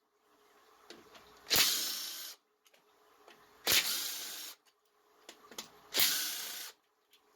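Three short bursts of a pneumatic hand tool, about two seconds apart, each a sharp start of hissing air that tails off, as it runs out the 1/2-inch bolts of a Briggs & Stratton opposed-twin engine's cover.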